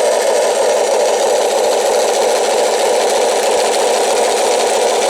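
Huina 1580 RC excavator's sound module playing a simulated diesel engine idle through its small onboard speaker, running steadily. It sounds thin, with no deep bass.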